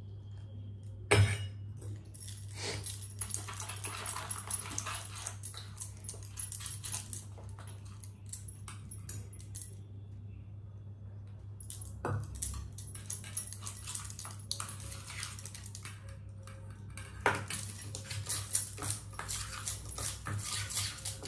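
Steel kitchen utensils clinking, scraping and knocking against a bowl while henna powder is wetted with water and mixed. There is a sharp knock about a second in, then long stretches of rapid clicking and scraping with more knocks around the middle and later, over a steady low hum.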